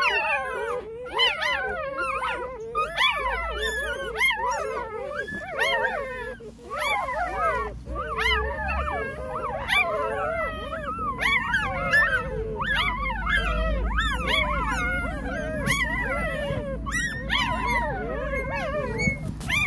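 A litter of day-old puppies crying: many high, wavering squeals and whines, several at once and overlapping, without a break.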